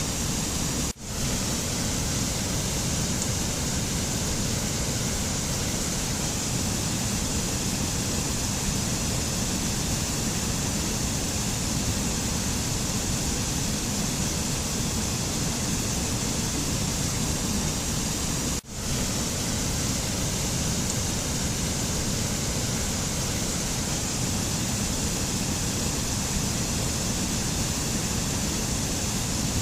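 Steady rushing noise of a looped mountain nature ambience, even and unchanging, briefly dropping out and swelling back twice, about a second in and again about two-thirds of the way through.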